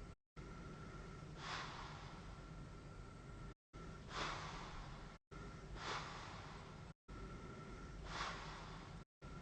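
A sleeper breathing through a CPAP mask: four slow, airy breaths about two seconds apart over a steady low hum. The sound cuts out completely for a moment several times.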